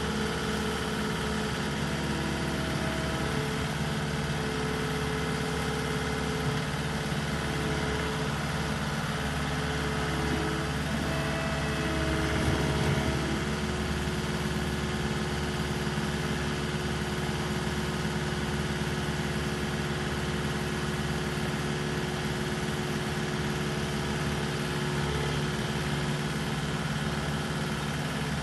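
Caterpillar skid steer's diesel engine running steadily, briefly louder about twelve seconds in.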